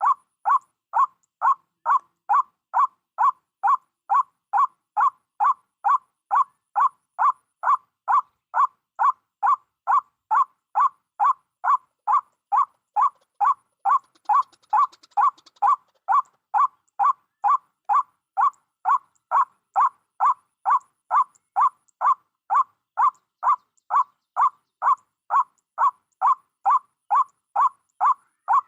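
White-breasted waterhen 'ruak' call, repeated over and over at an even pace of about two calls a second with clean silence between. The machine-steady rhythm fits a recorded lure call played from a speaker to draw the birds to the trap.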